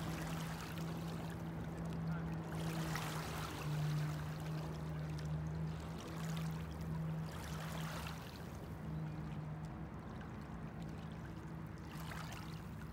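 Shallow water lapping over a pebble shore, small waves washing in and swelling every two to three seconds. A steady low hum runs underneath.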